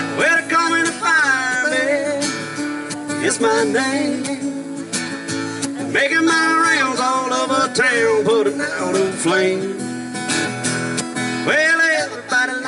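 Muted trumpet playing an instrumental solo of bending, sliding notes over a strummed acoustic guitar.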